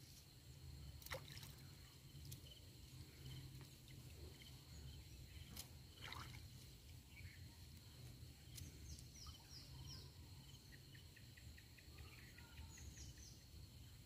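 Near silence: faint river ambience with light water sloshing as a wader handles a cast net, a steady high thin tone, and a few short falling chirps from birds twice near the end.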